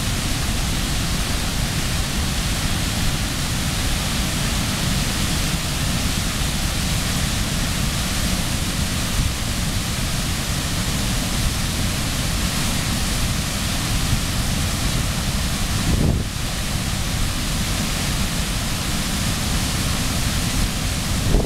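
Floodwater pouring over a dam spillway and churning in the pool below: a steady, loud rush of falling water with a low rumble underneath. The fall is running in flood, swollen with hurricane runoff.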